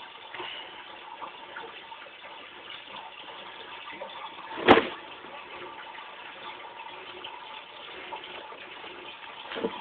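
Steady low hiss with one sharp, loud knock about halfway through and a softer knock near the end.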